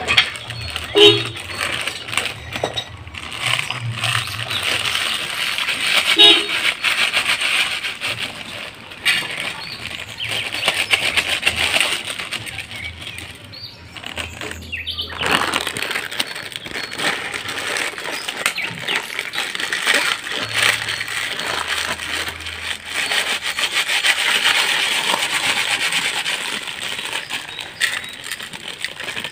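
Crinkling plastic snack packet and crunching of Lay's potato chips being crushed, in an irregular rustle with many small crackles.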